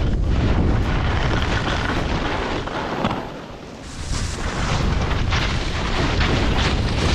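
Wind buffeting the camera microphone at speed while skiing downhill: a loud, steady rushing rumble that eases briefly about three and a half seconds in, then picks up again.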